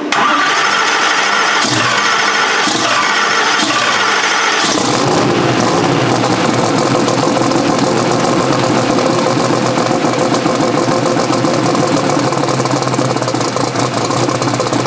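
Turbocharged Steve Morris SMX race engine's first start-up: it turns over for a few seconds, catches about four and a half seconds in, and keeps running steadily. It started on gasoline and then swapped over to methanol, and is not yet tuned to idle properly.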